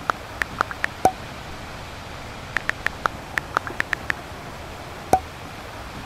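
Smartphone on-screen keyboard tap clicks in two quick runs of typing. A louder pop with a short tone comes about a second in and again about five seconds in, as each chat message is sent.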